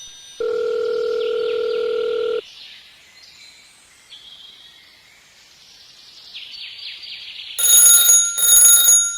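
A steady electronic beep held for about two seconds, then a quiet stretch with faint high chirps, then a bell-like electronic alarm ringing in two loud pulses near the end.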